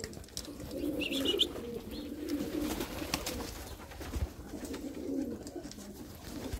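Vouta pigeons cooing, many overlapping low, wavering calls throughout, with one brief higher chirp about a second in.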